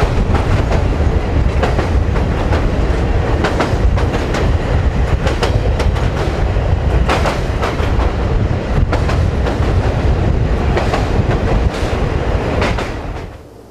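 Train running over a steel trestle viaduct, heard from aboard: a steady low rumble with the wheels clicking over rail joints. Near the end the sound fades down.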